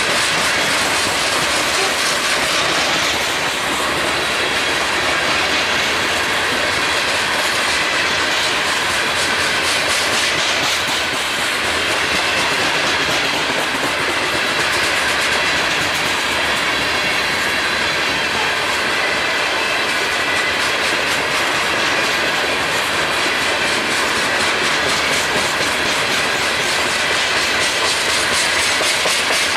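A freight train's open-top hopper cars rolling past: a steady, continuous wheel-on-rail rumble with a regular clicking of wheels over the rail joints.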